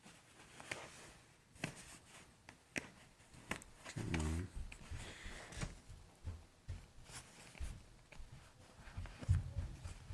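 Scattered light clicks and knocks of desk-top handling, with a short low hum about four seconds in.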